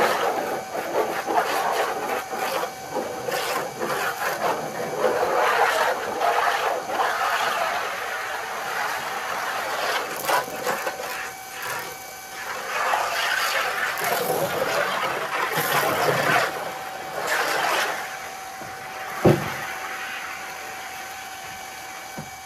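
Pressure washer running with a steady motor whine, its water jet hissing against wet wooden deck boards, the hiss rising and falling as the spray moves. A single sharp knock a few seconds before the end.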